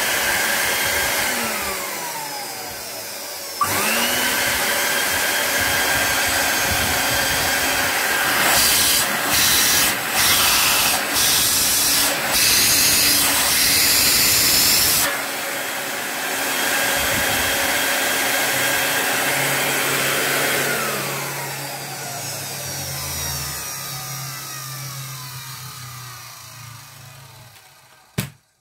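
1976 Electrolux Z87 vacuum cleaner's freshly serviced motor running bare in its lower casing: a loud rush of air with a whine over it. It drops away and starts again with a rising whine a few seconds in. Its sound jumps several times while hands press on top of the motor. From about three quarters of the way through it is switched off and winds down to a stop.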